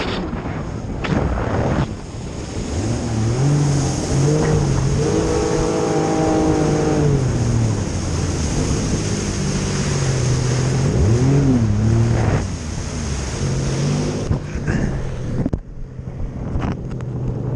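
Personal watercraft (jet ski) engine running at speed over choppy water, its pitch rising and falling with the throttle, mixed with wind on the microphone and rushing spray. About fifteen seconds in the sound turns muffled and quieter.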